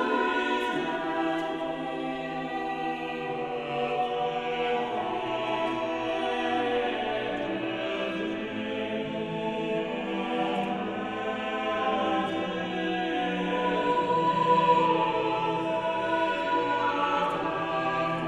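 Background music: a choir singing slow, long-held chords.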